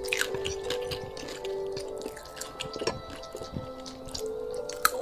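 Close-up wet chewing and crunching of crispy fried chicken: many small, irregular clicks and smacks. Soft background music with long held notes plays under it.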